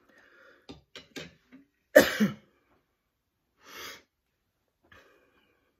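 A woman lets out one loud, sudden, explosive burst of breath through her nose and mouth about two seconds in, of the cough-or-sneeze kind, followed by a shorter breathy hiss near four seconds.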